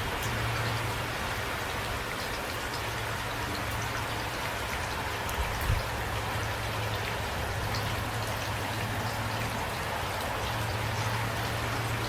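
Steady rain falling, with distinct single drops heard over the even hiss, and one brief low thump a little before the middle.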